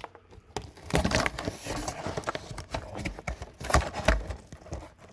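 Irregular clattering, knocking and rattling of hands working on a fire alarm control panel's hardware, with louder knocks about a second in and again near four seconds.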